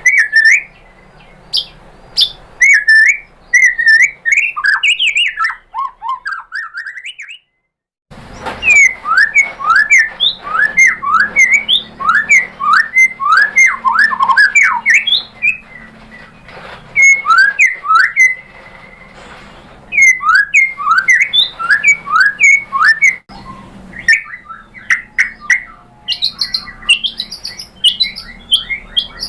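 White-rumped shama singing: fast runs of loud, sharp chips and short downward-sweeping whistles, several notes a second. The song cuts off abruptly about seven seconds in, leaving a brief silence, then resumes.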